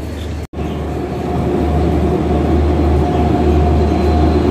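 Electric locomotive running along the track, a steady low hum with a thin higher whine that grows louder. The sound cuts out for an instant about half a second in.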